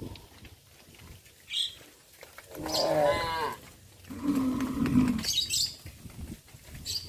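Cattle mooing: a wavering call about two and a half seconds in, followed by a lower, steadier moo about a second later. Short high bird chirps come in between.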